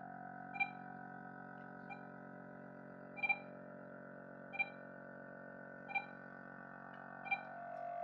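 Soft background music: a held synthesizer chord with a short bell-like note struck a little more often than once a second.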